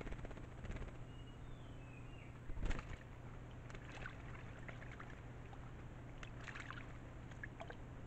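A bird bathing in a shallow rock pool, splashing the water in bursts, with the loudest splash about two and a half seconds in. Two short whistled bird calls sound faintly around the two-second mark, over a steady low hum.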